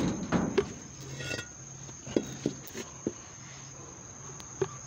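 Steady high-pitched insect drone from a cricket-type insect, held unbroken throughout, with a few short knocks about two, two and a half, three and four and a half seconds in.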